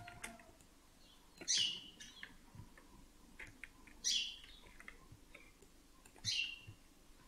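A bird chirping three times, about two seconds apart, each call short and falling in pitch. Faint clicks sound in between.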